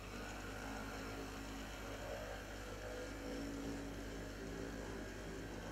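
HO-scale brass model of an ALCO FA-2 A-B diesel set running along the track, both units powered: a steady hum and whine from the motors and gearing.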